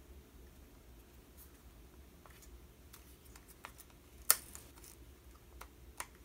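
Quiet handling of small objects on a desk: scattered light clicks and taps over a faint steady hum, with one sharper click about four seconds in and another near the end.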